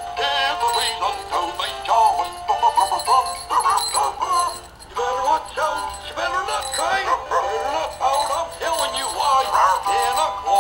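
Dan Dee animated Christmas dog stocking plush playing a Christmas song, with a sung melody and jingle bells coming from the toy. The song dips briefly about halfway through, then carries on.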